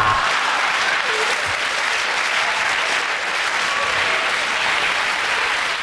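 Studio audience applauding steadily after a joke, easing off slightly near the end.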